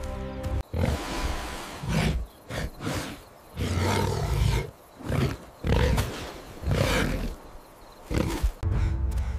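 A giant boar's calls, added as a sound effect: a series of loud, rough roars about once a second.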